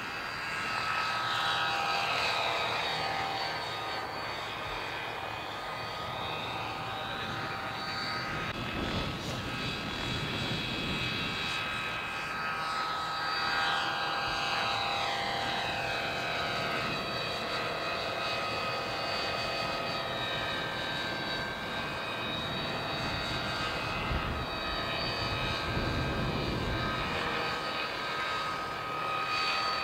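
Radio-controlled scale model helicopter in flight: a steady high whine from its motor and rotor, sliding down and back up in pitch several times as it flies past and turns.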